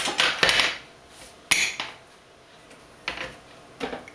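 Clinks and scrapes of cutlery against a dish and the Thermomix's stainless steel bowl as butter is portioned into it: a short scraping clatter at the start, a sharp clink about a second and a half in, then two lighter knocks near the end.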